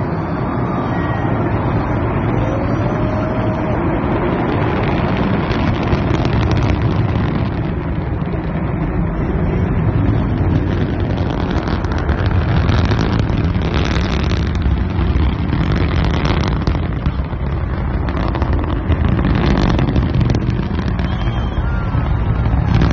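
Long March 3B rocket engines firing during launch: a loud, continuous rocket rumble, growing crackly from about six seconds in.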